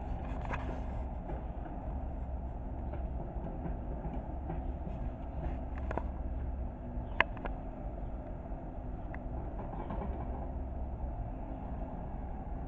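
Bobcat skid steer engine running steadily, with a sharp clank about seven seconds in.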